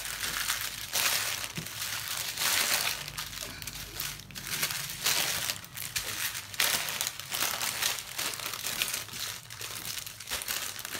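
Small plastic bags of diamond painting drills crinkling and rustling in irregular bursts as hands handle and gather them up on top of a plastic-wrapped canvas.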